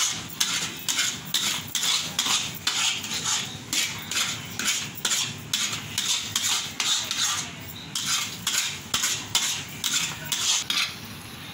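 A ladle stirring and scraping thick wheat halwa in a heavy kadai, about three quick strokes a second, with a brief pause about eight seconds in. The halwa is at the finished stage, rolling off the ladle and no longer sticking to the pan.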